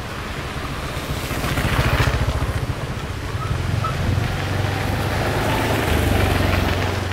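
An engine running steadily with a low hum, growing louder about two seconds in and again near six seconds in.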